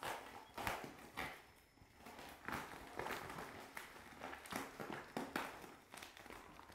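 Black plastic packaging crinkling and rustling in irregular bursts as it is pulled open by hand.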